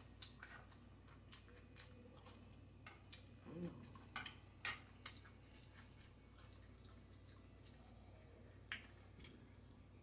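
Quiet chewing of taco salad and tortilla chips, with scattered sharp mouth clicks and lip smacks; the loudest come a few in quick succession about four to five seconds in and once near nine seconds.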